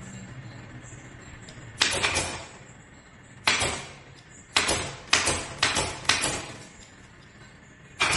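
About eight sharp, loud strikes at uneven intervals, each trailing off in a short hiss.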